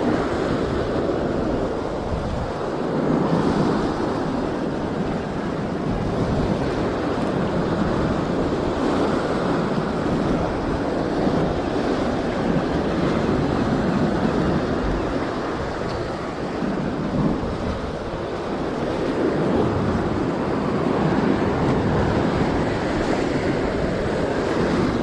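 Sea surf breaking and washing over rock ledges in a continuous rush that swells and eases, with wind buffeting the microphone.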